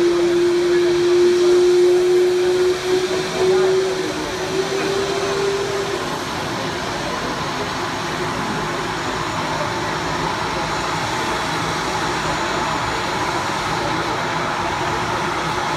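Parked helicopter's turbine engine running with the rotors still, a steady whooshing hum. A whine within it rises slightly in pitch over the first few seconds, then drops away.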